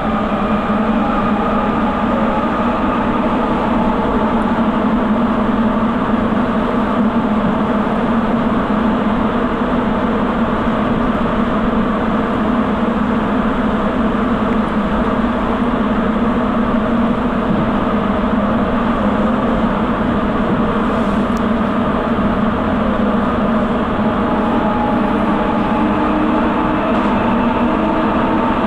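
Sapporo subway Tozai Line rubber-tyred train running at speed through the tunnel, heard from inside the car: a steady loud running noise with a low hum and several steady tones. Another tone joins near the end.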